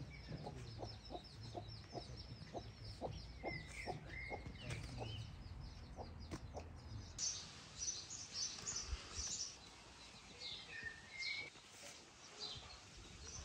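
Chickens clucking in a steady run of short calls, about three a second, with small birds chirping over them. About seven seconds in, the clucking stops and higher, quicker chirps take over.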